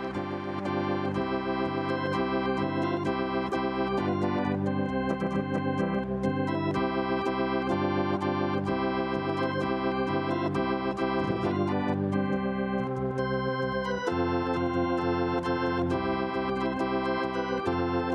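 Ballpark organ playing a tune, a continuous run of chords and melody notes that change about every half second.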